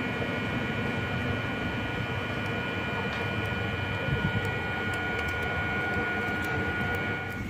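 Electric MEMU train running with a steady high-pitched whine over a low rumble. The whine stops abruptly near the end.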